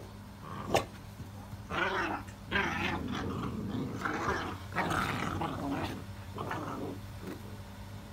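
XL American Bully puppies play-fighting and growling in a run of rough bursts, with a sharp click about a second in.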